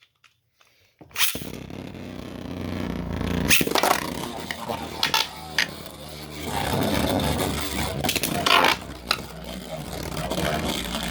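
Beyblade tops launched into a stadium about a second in, then spinning, scraping and clashing against each other, with several sharp hits.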